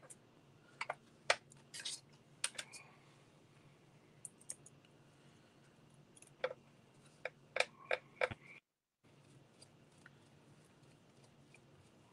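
Scattered light clicks and taps of small plastic and metal parts as the rear shocks are fitted onto the set screws of an RC buggy chassis, with a quick cluster of clicks about seven to eight seconds in.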